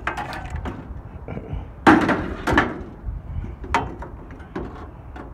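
Scattered knocks and clatter of debris shifting in a scrap pile, about half a dozen, the loudest about two seconds in.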